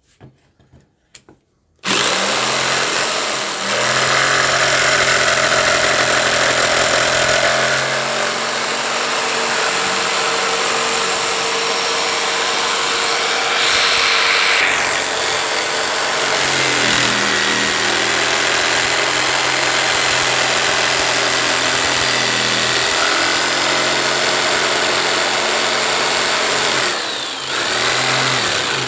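Electric jigsaw cutting through a wooden board: the motor starts about two seconds in and runs continuously, its pitch dipping briefly a few times as the blade takes the load.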